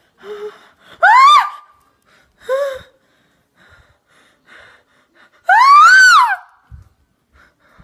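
A girl shrieking in fright at a bee: two loud, high screams that rise and then fall in pitch, about a second in and again near six seconds, with shorter squeals between.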